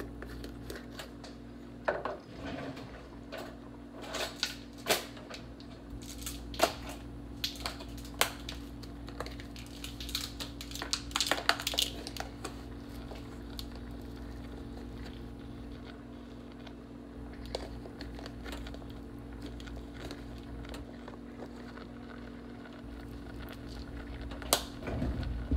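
A glass spice shaker and a plastic Parmesan cheese shaker handled, opened and shaken over a pan of vegetables: scattered sharp clicks and taps, most of them in the first half, over a steady low hum.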